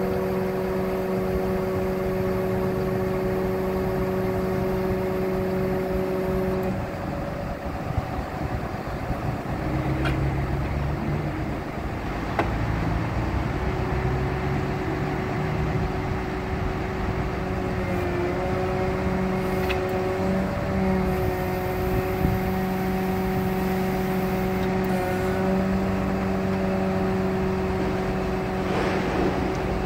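Diesel engine of a Freightliner M2 bucket truck running to drive the Altec boom's hydraulics. Its steady hum drops to a lower speed about seven seconds in, then comes back up about halfway through as the boom is worked, with a few faint clicks.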